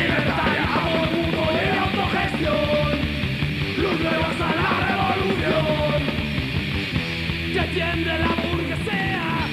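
Punk rock song: distorted electric guitars, bass and drums, with shouted vocals.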